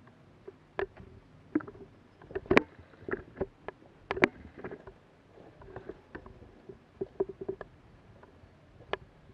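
Footsteps through woodland undergrowth: leaves and brush rustling, with irregular sharp snaps and knocks of twigs and gear, loudest around the middle.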